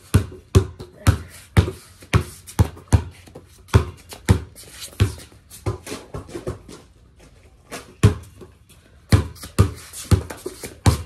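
A basketball being dribbled on hard ground, bouncing about twice a second. There is a short break a little past halfway, then the bouncing picks up again.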